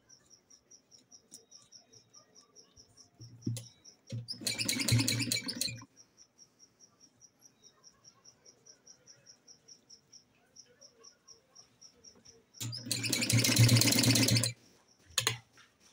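Sewing machine running in two short bursts of stitching, each one to two seconds long, sewing a gathered ruffle onto a dress neckline. Under it, a faint high chirping repeats about five times a second.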